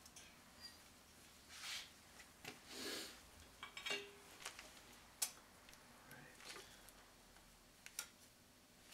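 Faint, scattered metallic clinks and scrapes of hand tools on motorcycle engine parts, with a few sharp clicks and short scraping sounds.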